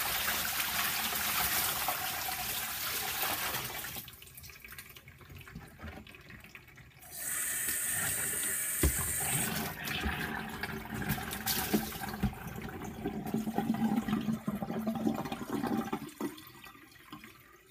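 Dirty rinse water poured out of a plastic dishpan into a sink, splashing and running down the drain. The water sound eases off about four seconds in, comes back stronger about seven seconds in, and fades out near the end.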